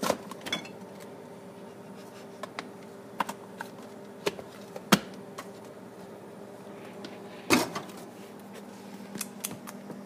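Irregular clicks and knocks of a hand handling a red plastic container lid against the refrigerator, the loudest a sharp click about five seconds in and a longer knock at about seven and a half seconds, over a steady low hum.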